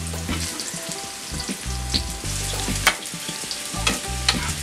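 Spiced potato pieces sizzling and crackling as they fry in hot vegetable oil in a kadai, with a pan of sliced onions also frying. A few sharp clicks from the wooden spatula and the pieces being set in the pan, the loudest about three seconds in.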